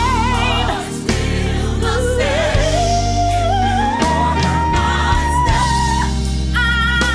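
Gospel singing with instrumental accompaniment and a strong bass line. A wavering lead voice slides up into a long held high note around the middle.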